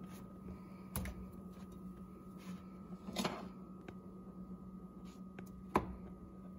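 A slice of bread being pressed and turned by hand in a dry non-stick frying pan: a short sliding rub about three seconds in and two light clicks of the pan, over a steady low hum.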